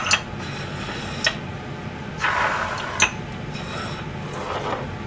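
Dishes and small bowls being set down and moved on a stainless steel kitchen counter: three light clinks a second or two apart, with a brief scrape in between.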